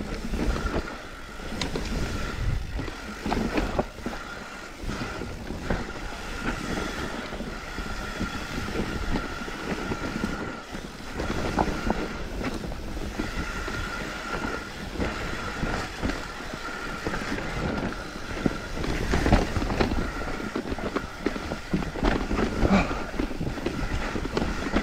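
Mountain bike rattling down a rough dirt forest trail: chain and frame clatter, knocks over roots and rocks, tyre and wind noise, with a steady high whine that comes and goes.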